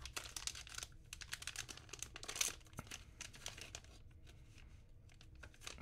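Blue metallic foil wrapper crinkling and tearing as it is pulled open by hand: a dense crackle, loudest about halfway through and thinning out in the last seconds.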